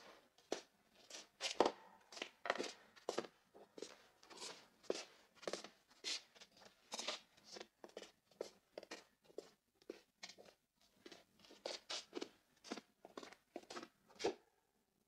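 Scuffing footsteps on a stone floor: an uneven run of soft taps and scrapes, about three a second, ending with one firmer step near the end.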